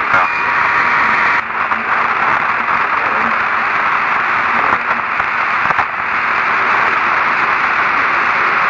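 Steady radio static hiss on a voice communications channel, with no voice coming through; the hiss sits in a narrow middle band with a couple of faint clicks.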